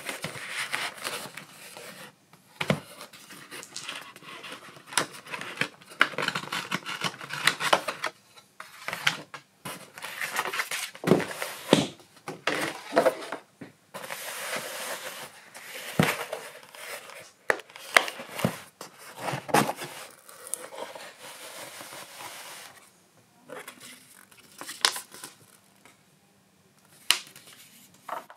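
Packaging being unwrapped by hand: irregular bursts of crinkling and tearing plastic and paper, broken by several sharp clicks and knocks.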